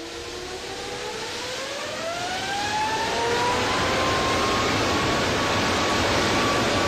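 Rolls-Royce Trent 900 turbofan spooling up to full power with the throttles opened. A rising whine climbs over the first three seconds or so and then holds steady over a loud, growing jet roar.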